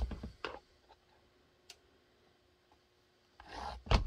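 Rubbing and scraping of the kydex holster shell being handled and marked up. The noise dies away after half a second, a single faint click comes in the quiet middle, and handling noise starts again near the end.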